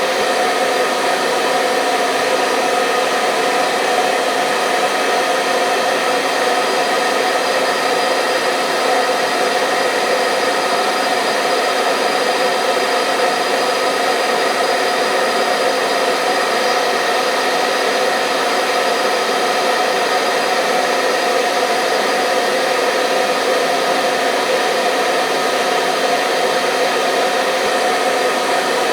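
Hair dryer running continuously at a steady speed, a constant whooshing hum with a faint steady whine, played as a sleep sound for babies.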